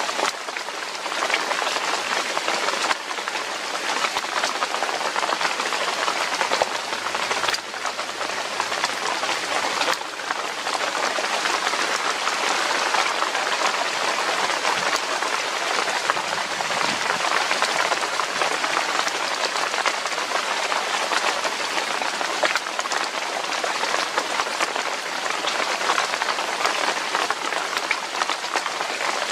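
Steady rain falling, an even hiss of drops with no break.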